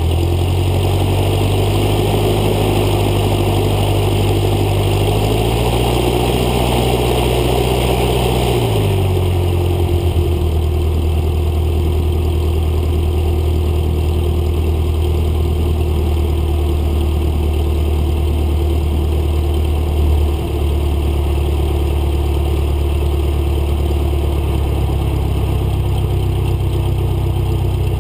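Cessna 152's Lycoming O-235 four-cylinder engine and propeller running at taxi power. The engine note rises slightly about five seconds in, then drops to a lower, steady note about nine seconds in as power is reduced.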